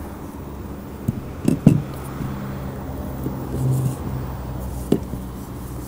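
Steady low motor hum, with a few sharp knocks and clicks: three close together a little after a second in, and one more near the end.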